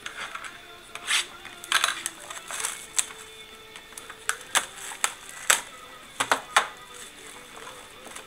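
Plastic shrink wrap being torn and crinkled off a trading-card box, an irregular run of sharp crackles and clicks, some louder than others.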